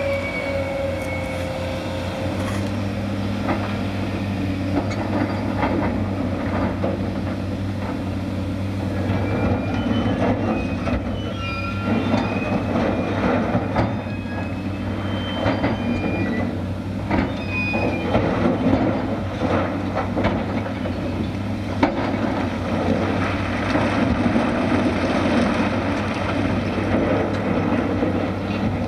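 Heavy diesel machinery running steadily as a crawler crane works a riprap rock bucket, with a Cat excavator alongside. Short high metallic squeals and clanks come in about a third of the way through, along with the clatter of riprap rock tipped from the bucket onto the pile.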